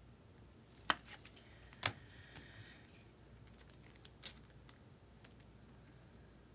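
A few separate sharp clicks and taps, the two loudest about one and two seconds in and a smaller one past the middle, with a faint scrape between: trading cards being handled and set down on the desk.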